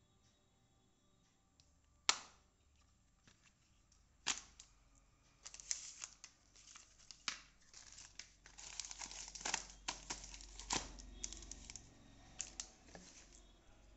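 A sharp tap about two seconds in, then a long run of plastic crinkling and rustling with scattered clicks, busiest in the middle, as stacked cardboard glue-trap boards in clear plastic wrapping are handled and set down.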